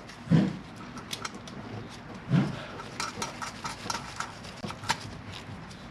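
Light metallic clicks and clinks of nuts and washers being handled and threaded by hand onto intake manifold studs, with a couple of dull thumps about half a second and two and a half seconds in.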